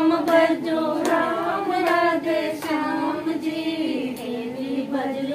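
Women's voices singing a Hindi devotional bhajan together without instruments, in long, held, wavering notes. Faint hand claps keep time.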